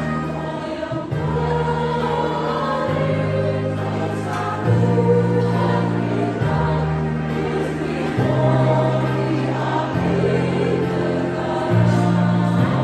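Women's choir singing in parts over an accompaniment of held low notes that change every couple of seconds.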